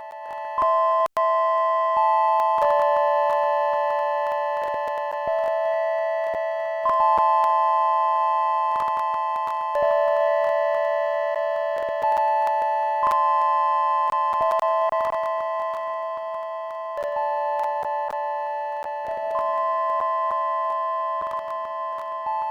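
Arturia MiniBrute 2 and VCV Rack synthesizer patch: several pure, sine-like tones held together in a phasing chord that steps to new notes every two to three seconds, each step starting loud and slowly fading. Scattered clicks and buggy popping noises run through it, with a brief dropout about a second in.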